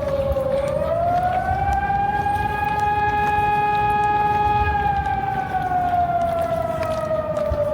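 Hörmann ECN 1200 electronic civil-defence siren sounding a slow wail. The tone dips low about half a second in, rises and holds steady for a few seconds, then slowly falls again near the end.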